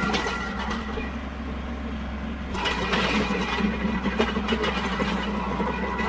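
Tractor-driven PTO stump grinder running: a steady engine hum under a steady high whine from the spinning cutter wheel. From about two and a half seconds in, a louder rough, rattling, crackling noise joins as the teeth chew into the wood and dirt of the stump.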